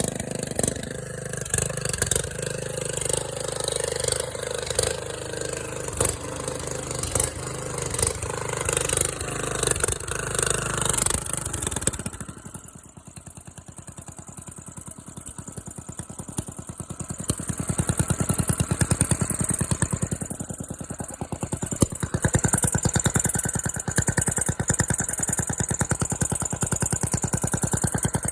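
Engine running really loud through a new exhaust that replaced a single pipe. It drops off sharply about 12 seconds in to a quieter, even beat, then builds back up to a loud, rapid firing beat from about 18 seconds.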